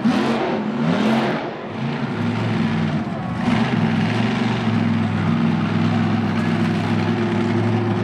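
Monster truck engine revving up and down a few times in quick succession, then running steadily at high revs, with another hard burst of throttle about three and a half seconds in.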